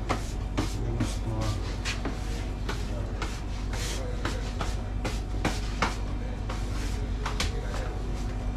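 Kitchen work at a pizza counter: irregular sharp knocks and clacks, several a second, over a steady low hum of kitchen equipment.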